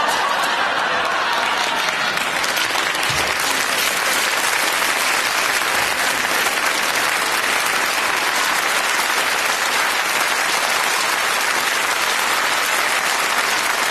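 Studio audience applauding steadily without a break.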